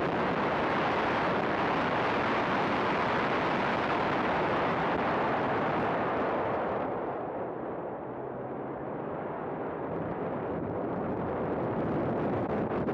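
Race car at speed, a heavy rush of wind and engine noise on the camera microphone. The rush falls away about six seconds in as the car brakes for a corner, then builds again as it accelerates back out.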